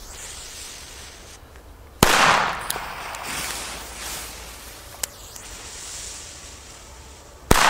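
Two Katan B-Böller firecrackers (category F2) going off with sharp, loud bangs about five and a half seconds apart. Each bang rings out briefly, and a faint pop falls between them.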